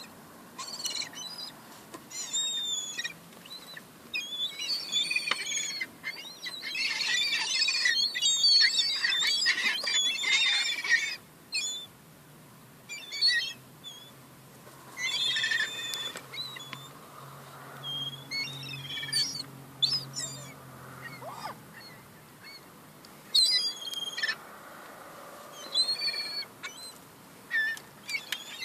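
Young gulls calling high-pitched and squabbling over food scraps, with a dense burst of overlapping calls about a third of the way in, then scattered single calls.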